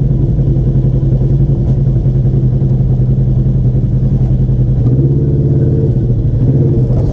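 Polaris RZR side-by-side's engine running with a steady, even drone while the machine is driven along the trail.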